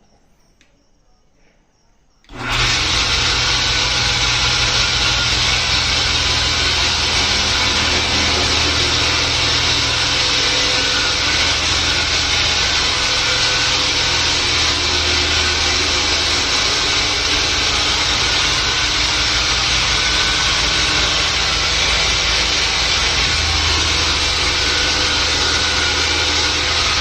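Homemade sliding panel saw running: after a quiet start, the blade and motor come in abruptly about two seconds in and then run steadily with a loud sawing noise over a low motor hum.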